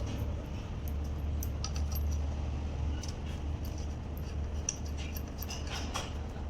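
Small metal parts clinking and ticking as a wire terminal and hardware are handled and fitted while connecting the negative lead to a truck alternator, over a steady low hum.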